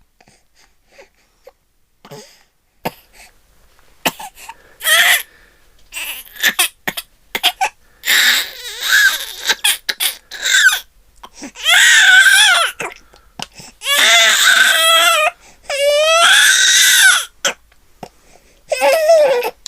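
Baby girl crying: a few seconds of small sniffles and catches of breath, then loud, wavering wailing cries in bursts, the longest about a second and a half each, with gasps between them.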